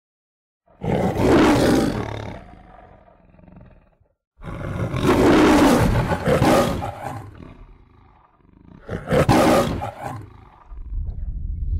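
Lion roaring three times, each roar loud and then trailing off: a lion-roar sound effect under a studio logo.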